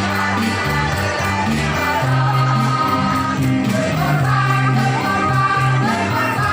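A choir singing, the voices holding long notes over a sustained low accompaniment.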